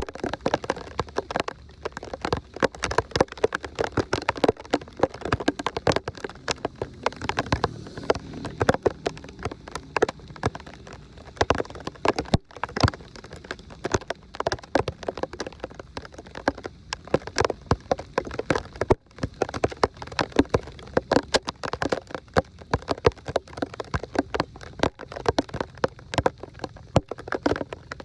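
Rain pattering, with many irregular sharp taps of drops over a steady wash of noise.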